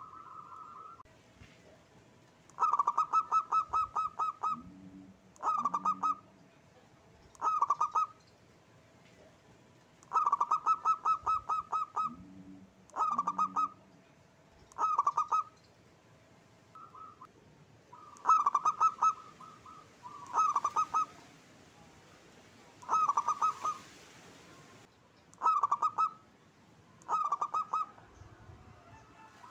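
Zebra dove (perkutut) singing: about a dozen short phrases, each a quick run of clear, pitched cooing notes, with pauses of a second or two between them. Two of the phrases are longer runs of notes.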